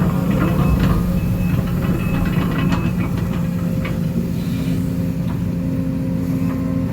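Case CX210D excavator's diesel engine running steadily while digging, with a run of light knocks and scrapes during the first three seconds as the bucket works through the ditch.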